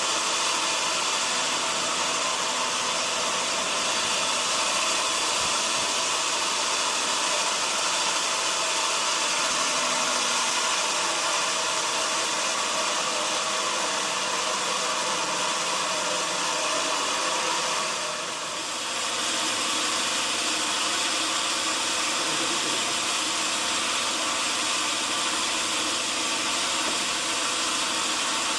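Sawmill machinery running steadily, a dense even noise with a few faint steady hums. The noise dips briefly about two-thirds of the way through, then carries on.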